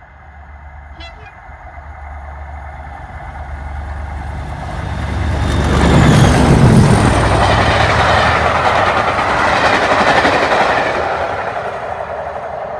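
Two Class 37 diesel locomotives, double-heading a passenger train, approach and pass at speed under power, their English Electric V12 engines working hard. The engine noise builds to its loudest about six seconds in. The rush and rattle of the coaches going by follows and fades near the end.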